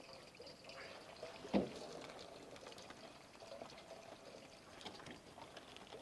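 Water poured from a large plastic jug into a stainless steel basin: a faint, steady splashing trickle. A single short knock comes about one and a half seconds in.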